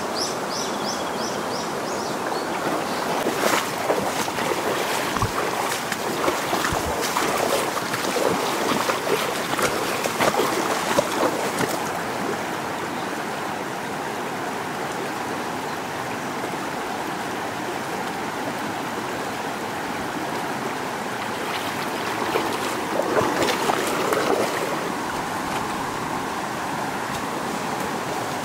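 Shallow mountain stream flowing over a stony riffle, a steady rush of water. Twice it swells into louder, uneven splashing.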